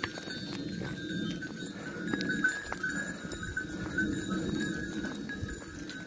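A flock of sheep on the move, hooves shuffling and ticking on the ground, with small bells tinkling over it.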